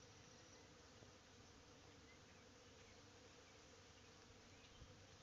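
Honeybees working a blossoming tree, a faint steady buzzing hum.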